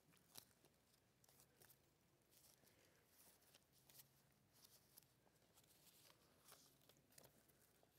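Near silence: faint, scattered rustles and small clicks of paper being handled close to a microphone, over a faint low hum.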